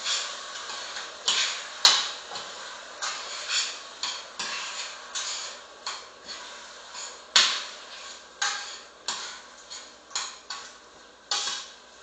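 Chicken and onion sautéing in a frying pan while a utensil stirs them: a run of about fifteen irregular scraping strokes, one sharp knock against the pan about two seconds in, over a steady sizzle.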